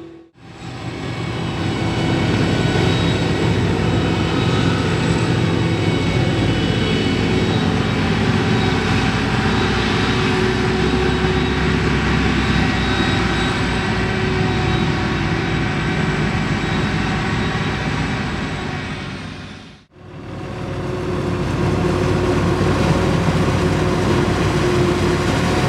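Large diesel farm machinery, a tractor or forage harvester, running steadily and loudly with a constant high whine over the engine. The sound fades out briefly twice, just after the start and about twenty seconds in.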